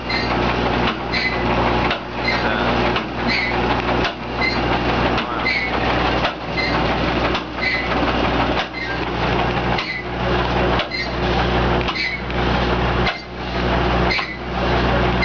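Virginia V's triple-expansion steam engine running slowly, turning over in an even pulse about once a second, with a light tick on each turn.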